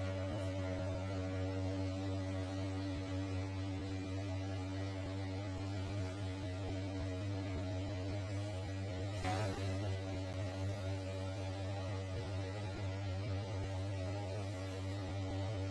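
Steady low hum with fainter steady overtones above it, and a brief soft noise about nine seconds in.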